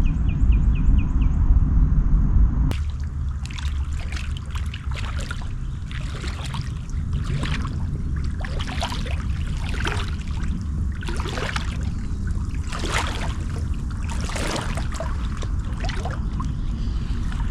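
Creek water trickling and splashing in irregular bursts over a steady low rumble.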